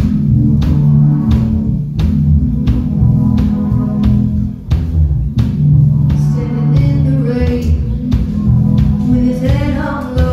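Live rock band playing: electric guitar, bass and drum kit with a steady beat, and a singer's voice coming in about halfway through.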